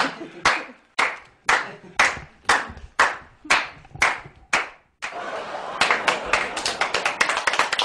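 Hands clapping in a steady rhythm, about two claps a second. About five seconds in it gives way to quicker, uneven clapping by several people.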